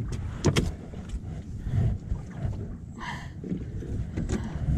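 Wind buffeting the microphone, with a few sharp knocks as a gaffed lingcod is hauled over the gunwale onto the skiff's wooden deck. One knock comes about half a second in, and the loudest comes near the end.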